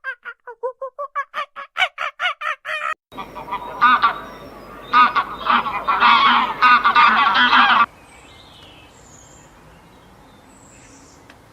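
Animal calls: a rapid run of repeated calls, about four a second, then a dense chorus of many overlapping calls over background noise that breaks off about eight seconds in, leaving only faint steady outdoor noise.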